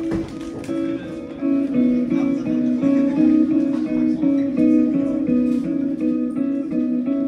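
Live jazz-fusion band playing: electric guitars and violin carry a riff of quick, changing notes over drums. The band gets louder about a second and a half in.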